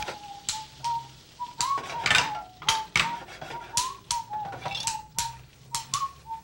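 Freshly boiled, drained potato gnocchi frying in browned butter in a skillet: irregular sharp pops and spatters with short high squeaks.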